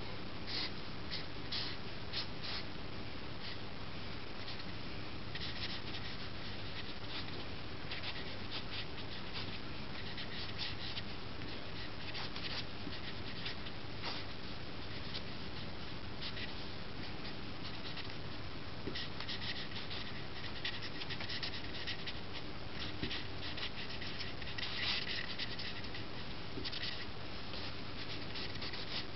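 Black marker scratching across paper in quick sketching strokes, coming in bursts with short pauses between them, over a steady low hum and hiss.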